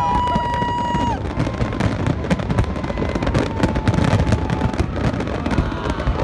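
Large fireworks display: a dense, continuous run of bangs and crackling from bursting shells over a low rumble. A few pitched tones slide up and hold for about a second near the start.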